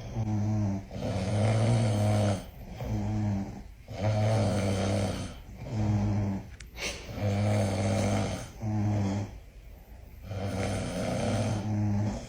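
A sleeping person snoring in a steady rhythm: five snores about two and a half seconds apart, each a short snore followed by a longer, louder one.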